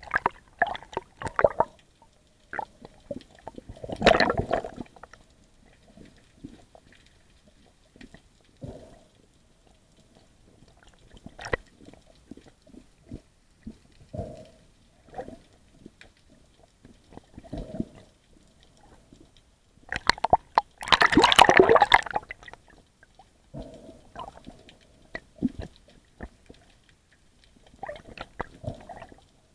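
Underwater water noise heard through an action camera's housing while a spearfisher swims: irregular swishes and gurgles, with one louder rushing burst lasting about two seconds a little past the middle.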